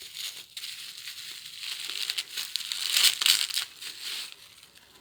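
Plastic packaging crinkling and rustling as it is handled and unwrapped, loudest about three seconds in and dying away shortly after four seconds.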